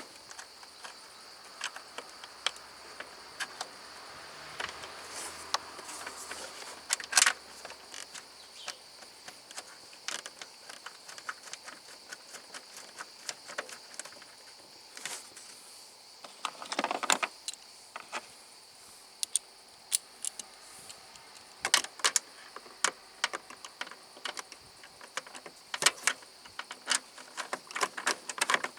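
Irregular light clicks and metallic clinks of hand work on a car, as tools and parts are handled, with a louder clatter about seven seconds in and a short rustling burst around seventeen seconds. A steady high-pitched insect chirr runs beneath.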